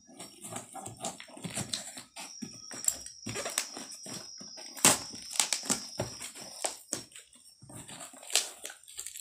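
Cardboard shipping box being opened by hand: packing tape peeled off and the flaps pulled open, giving irregular crackling, scraping and knocking of cardboard.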